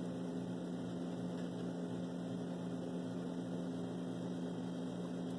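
Steady low electrical hum, two even tones under a faint hiss, unchanging throughout; the spoon and bowl make no distinct sounds.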